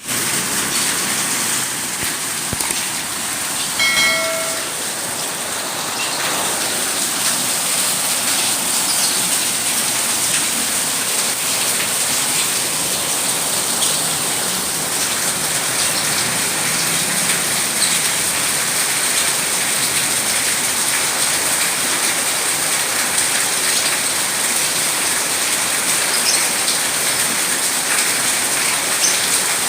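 Steady rain falling and pattering on surfaces. About four seconds in there is a single short pitched call.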